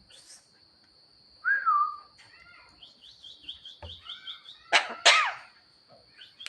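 Javan myna calling: a clear whistled note that falls, then a quick run of high repeated chirps, then two loud harsh calls about five seconds in. A steady faint high tone runs underneath.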